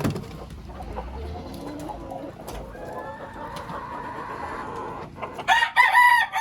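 Chickens clucking softly, with a few light clicks, then a rooster crows loudly near the end, one long call.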